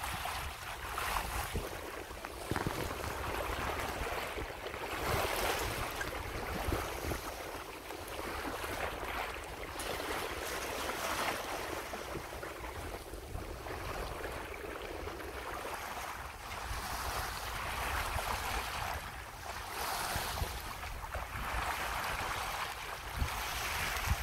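Water rushing and splashing along the hull of a Hunter 356 sailboat under way, swelling and fading every couple of seconds, with a low rumble of wind on the microphone.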